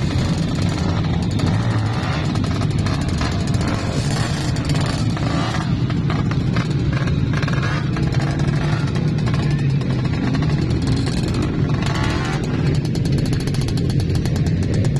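Trail motorcycle engine running steadily, with music playing alongside.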